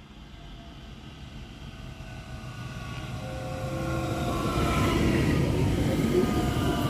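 Electric multiple unit, a Bombardier Talent 2, approaching and passing close, getting steadily louder. Rumbling wheels sound under several whining tones from the traction drive that fall slightly in pitch as it slows into the station.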